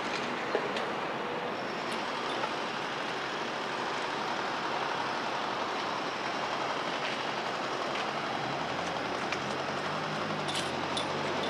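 Steady noise of heavy diesel machinery working, with a low engine hum coming up about two thirds of the way through and a few faint clanks.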